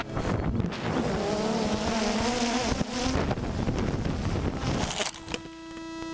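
DJI Phantom quadcopter's propellers buzzing unevenly over rushing air as it tumbles out of the sky after being hit by pigeons. It crashes into brush about five seconds in with a few sharp knocks, and a steady hum is left afterwards.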